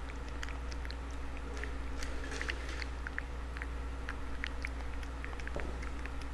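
Cat eating from a paper bowl: a quick, irregular run of small wet chewing clicks, over a steady low hum.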